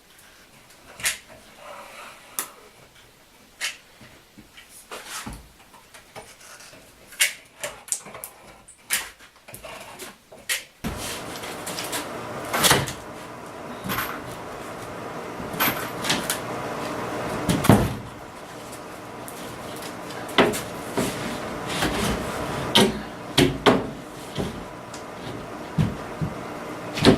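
Scattered knocks and clunks, irregular and sharp. About eleven seconds in, a steady hum starts underneath and runs on under further knocks.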